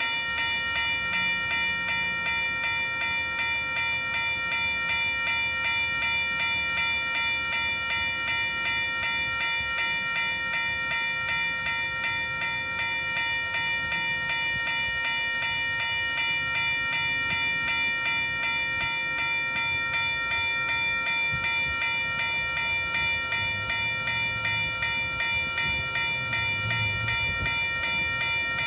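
Diesel locomotive standing with its engine running: a steady high-pitched whine over a low rumble that swells slightly near the end.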